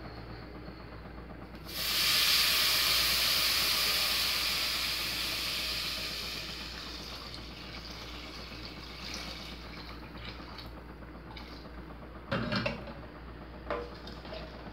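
Water poured from a pot onto rice sautéed in hot pork fat, setting off a sudden loud hiss of sizzling and steam that slowly dies away over several seconds. Near the end a wooden spoon knocks twice against the aluminium pot as the rice is stirred.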